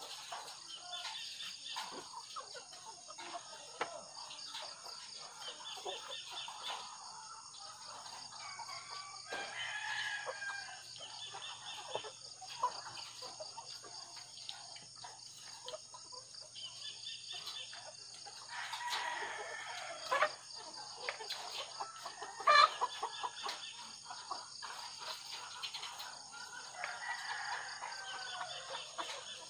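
A shed full of caged ready-to-lay pullets clucking and calling over a steady high hiss, with a few sharp knocks about two-thirds of the way through.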